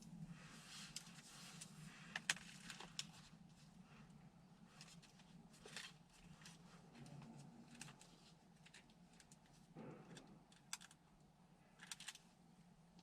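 Quiet room tone: a steady faint low hum with scattered small clicks and taps, about a dozen, irregularly spaced.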